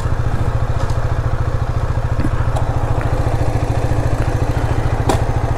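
Husqvarna 250's KTM-built single-cylinder engine idling steadily with an even, fast beat. A single sharp click near the end.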